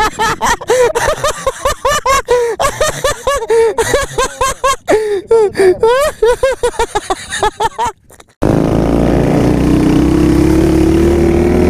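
Small dirt bike engine revved in rapid short blips, its pitch jumping up and down several times a second. After a sudden break about eight seconds in, it runs steadily under throttle with the pitch slowly climbing as it gains speed.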